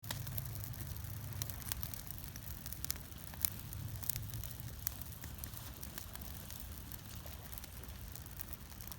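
Campfire crackling, with sharp snaps and pops scattered irregularly over a steady low rumble.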